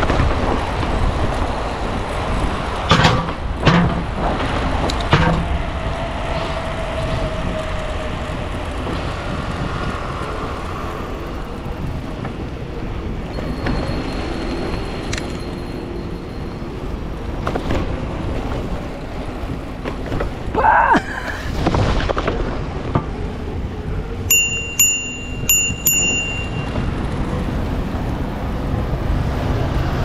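Steady wind on the microphone and road traffic alongside a moving bicycle, with a few sharp knocks early on and a short run of high beeps late on.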